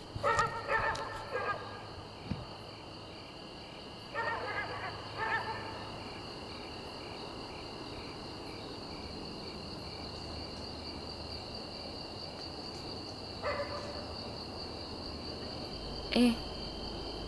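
Night ambience of crickets chirring steadily in high, even tones. A few brief pitched calls break in over it: two near the start, one around four to five seconds in, and shorter ones near the end.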